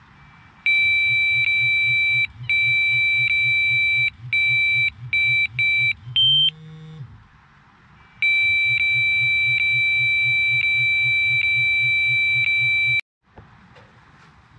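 Electronic carp bite alarm (or its receiver) sounding: a loud stream of rapid high beeps, broken off several times, then running for almost five seconds and cutting off suddenly. This signals a run, a fish taking line.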